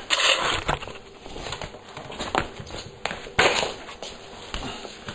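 Handling noise as the camera is moved and set down on a wooden floor: a short rustle at the start, then a few sharp knocks, the loudest about three and a half seconds in.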